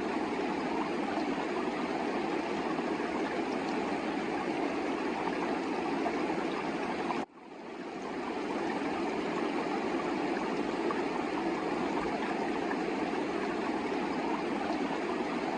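Steady rushing of a Himalayan river's water. It cuts out abruptly about seven seconds in and fades back up over about a second.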